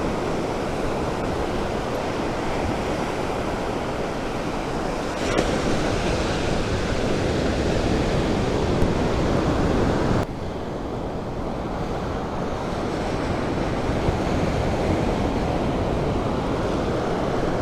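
Ocean surf breaking and washing up a beach, with wind on the microphone. The wash swells about five seconds in and drops away sharply about ten seconds in.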